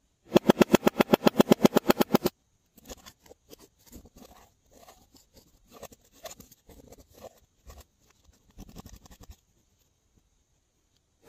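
A loud, rapid run of clicks, about ten a second, lasting about two seconds. Then a metal spatula scrapes and picks at pressed eyeshadow in a palette pan: soft, irregular scratches and ticks.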